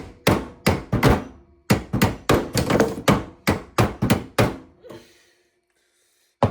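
A hammer striking a plumbing fitting in a quick run of dull blows, about three a second, driving the fitting farther onto the pipe to tighten a leaking joint. The blows stop about four and a half seconds in, and one more blow lands at the very end.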